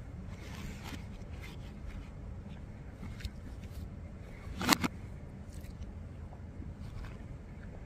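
Quiet eating sounds: small clicks and scrapes of a fork in a black plastic takeout tray of spaghetti, with one sharp clatter a little under five seconds in.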